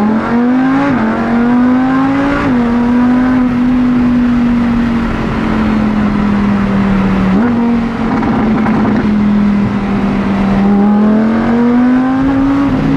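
Lamborghini Huracán's V10 engine accelerating hard at full throttle. The revs climb and drop with quick upshifts about a second and two and a half seconds in, then hold steadier, with a brief jump in pitch about seven seconds in and a slow climb near the end.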